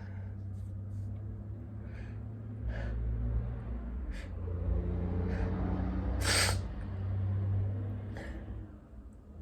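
A man's short, sharp gasping breaths, one about every second, building to a sneeze about six seconds in, the loudest sound. Another short breath comes near the end, over a steady low hum.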